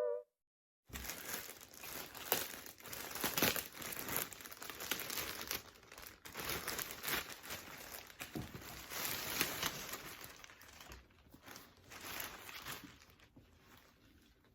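Wrapping material crinkling and rustling in an uneven run of handling noises as a newly delivered handbag is unwrapped, starting about a second in and stopping near the end.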